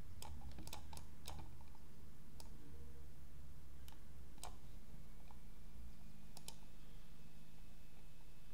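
Computer mouse clicking about ten times at irregular intervals, several in quick succession in the first second and a half and a pair at about six and a half seconds, over a steady low hum.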